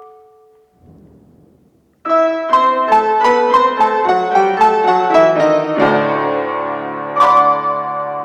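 Piano: a held note dies away, there is a short pause, and about two seconds in fast playing begins, a quick run of struck notes that is joined by held low notes in the second half.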